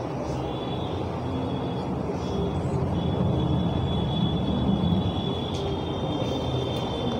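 Steady low rumbling background noise, slightly louder in the middle, with a faint high-pitched whine held steady through the second half.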